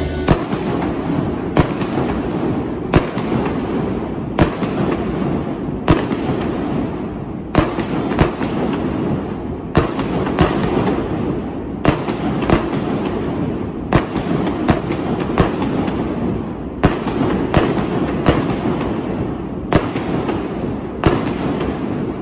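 Indoor fireworks bursting under a closed stadium dome: a steady string of about twenty sharp bangs, roughly one every second or so, some in quick pairs. Each bang is followed by a long echoing tail from the enclosed roof.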